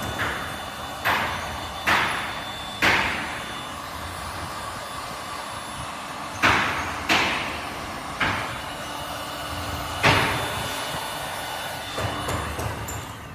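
A series of sharp knocks, about seven at uneven intervals, each with a short ringing decay, over a steady background hum.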